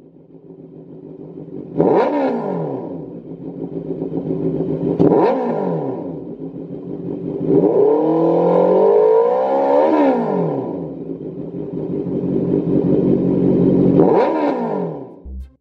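Honda CB650F inline-four motorcycle engine through a Lextek MP4 aftermarket silencer, idling and revved on the throttle. There are short sharp blips, each falling back to idle, and one longer rev held in the middle.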